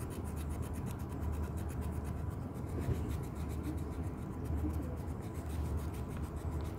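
Small knife blade lightly scraping the bared wood of a rose branch, rubbing off the thin layer of bark left after the bark ring was stripped for air layering.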